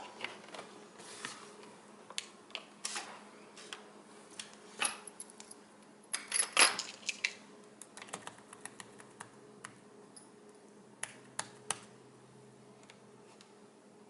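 Keys on a Dell XPS M1210 laptop keyboard clicking as they are pressed during boot, in scattered taps and short runs, over a faint steady hum.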